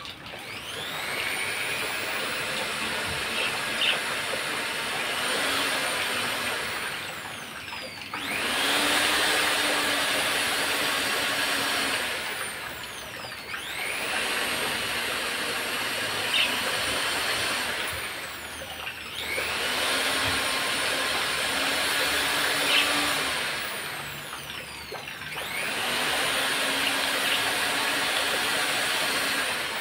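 Electric hand drill running, its motor whining steadily, slowing briefly about every five or six seconds and then speeding up again.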